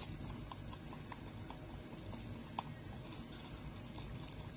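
Faint, irregular light taps and clicks of plastic resin mixing cups and tools being handled on a work table, over a steady low background hum.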